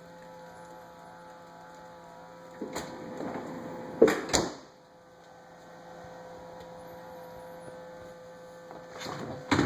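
Samsung refrigerator running with a steady humming whine, broken by a few knocks, the loudest about four seconds in.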